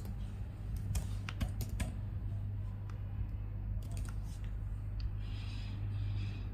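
Computer keyboard keystrokes: scattered key presses in short runs, mostly about one and four seconds in, over a steady low hum.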